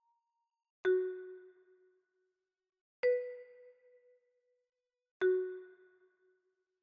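A chime sound effect rings three times, about two seconds apart. Each strike is a single bell-like ding that dies away in about a second, and the middle one is higher in pitch than the other two.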